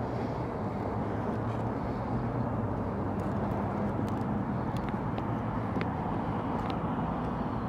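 Steady outdoor city ambience: a low, even rumble of traffic with a faint engine hum in it, and a few faint high ticks scattered through.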